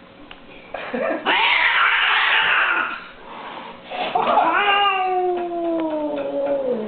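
A cat hissing, then giving one long yowl that slides slowly down in pitch: the hostile warning sounds of an agitated cat.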